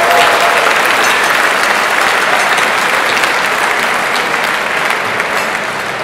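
Audience applause: a large crowd clapping, easing off slightly near the end.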